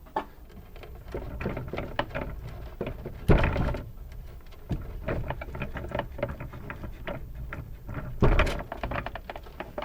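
Handling noises from work on a plastic toy robot: many small clicks and knocks, with two louder scrapes, about three seconds in and again about eight seconds in.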